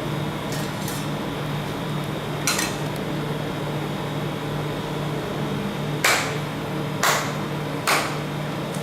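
Metal spatulas knocking sharply on a rolled ice cream maker's steel cold plate, four loud strikes (one a few seconds in, then three about a second apart near the end), over the machine's steady hum.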